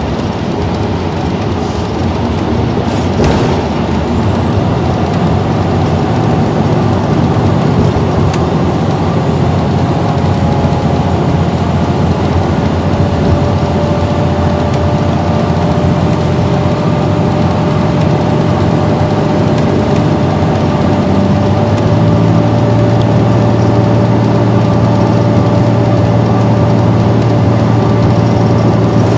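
Inside a 2012 Gillig Low Floor transit bus moving at highway speed: a steady drone of engine and drivetrain mixed with road and tyre noise. A faint high whine climbs over the first few seconds and then holds, and a deeper hum grows louder about two-thirds of the way through.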